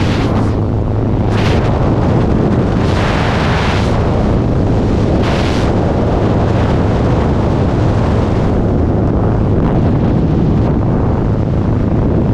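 Loud wind rushing over a helmet-mounted camera's microphone outside a jump plane's open door in flight, gusting harder a few times in the first half. Beneath it is a low, steady drone from the aircraft's engine, which drops away about two-thirds of the way in.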